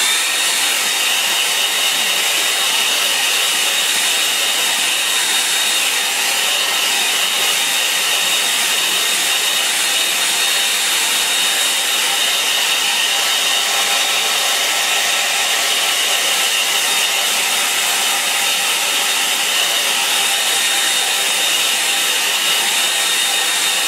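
Handheld hairdryer running steadily on a wet watercolour wash to dry it: a loud, even rush of air with a faint high whine.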